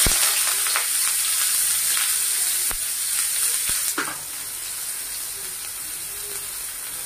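Finely chopped onions sizzling as they hit hot oil with cumin seeds in a kadhai. The frying is loudest at first and settles lower about four seconds in, with a few light clicks.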